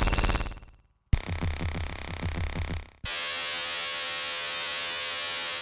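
Designed electromagnetic-field sound effects played back one after another from a sampler. A dense electrical buzz fades out in the first second, then a pulsing, rhythmic texture runs for about two seconds, then a steady hissing drone with a faint hum stops abruptly at the end.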